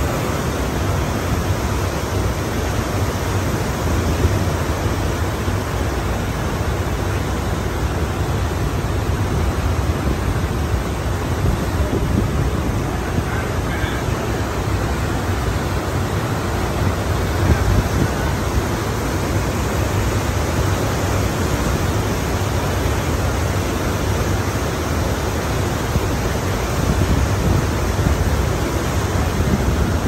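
Ocean surf washing continuously in a steady wall of noise with a deep low rumble, swelling slightly from moment to moment.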